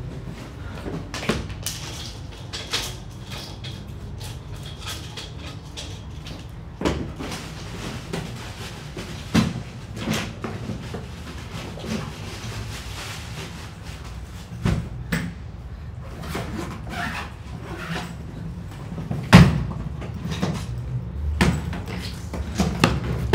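A series of separate knocks and bangs of household objects, irregularly spaced, the loudest about 19 seconds in, over a low steady hum.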